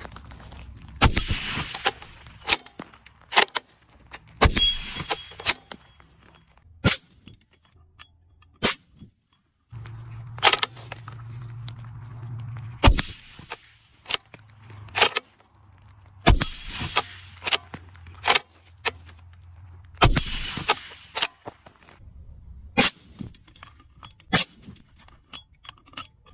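Bolt-action Steyr-Mannlicher SSG 69 PII rifle in .308 Winchester firing about six shots, each sharp report trailing off in an echo. Between the shots come shorter, sharper metallic clinks with a high-pitched ping.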